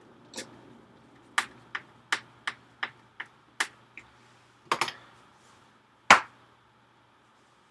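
A run of sharp clicks and taps, about three a second, then a quick cluster of knocks and one louder knock near the end: small tools, screws and parts being handled while reassembling an iMac.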